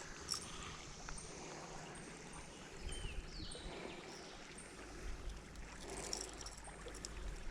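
Creek water running faintly and steadily, with a low rumble for a few seconds in the middle.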